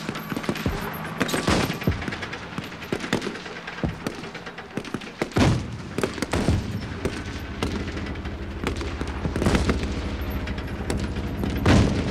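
Battle gunfire from several guns: irregular single shots mixed with rapid automatic fire. A handful of louder shots ring out with echo, about a second in, near the middle and near the end.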